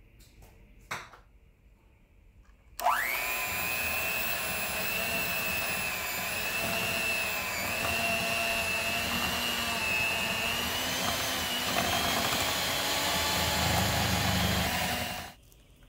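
Electric hand mixer switched on about three seconds in, its motor whine rising quickly to a steady pitch as the beaters work cream cheese in a glass bowl, then switched off near the end. A single short knock comes about a second in.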